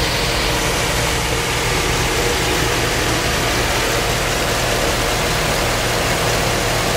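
2006 Chevrolet Silverado's Vortec engine idling steadily, heard close over the open engine bay.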